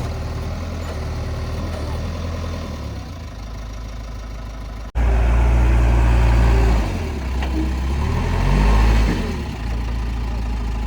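JCB 3DX backhoe loader's diesel engine running steadily, then, after a brief cut about five seconds in, louder with its pitch rising and falling as it revs under working load for a few seconds before settling back to a steady run.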